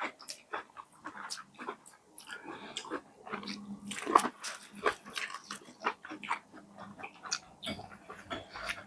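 Close-up eating sounds: wet chewing, lip smacks and crisp bites, a string of short irregular clicks and crunches with no talking.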